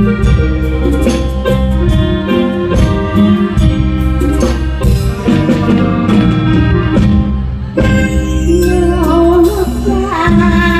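A live band plays an upbeat instrumental passage with a steady drum beat, amplified over a PA. A woman's singing voice comes in over the band near the end.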